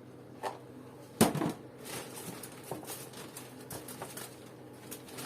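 A few short knocks and light clatters of household items being handled and set down on a surface, with one louder knock a little over a second in.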